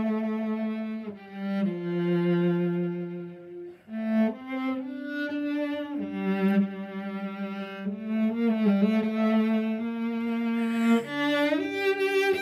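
Cello playing a slow melody in long bowed notes, some joined by slides and held with vibrato, with a brief break in the sound about four seconds in.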